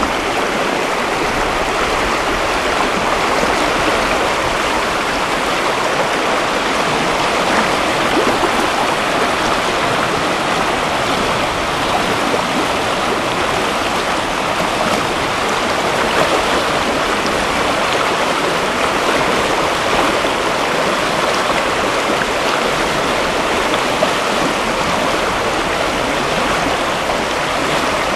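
River rapids rushing: a steady, even roar of moving water.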